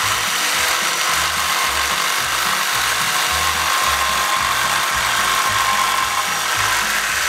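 Jigsaw running steadily as it cuts a notch into a pressure-treated deck board.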